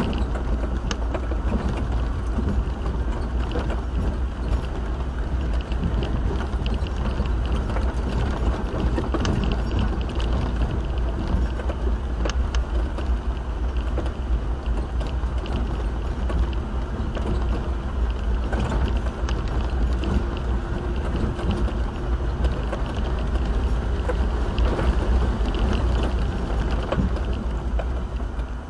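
A vehicle driving over a rough bush track, heard from inside the cab: a steady low rumble of engine and tyres with frequent small rattles and knocks.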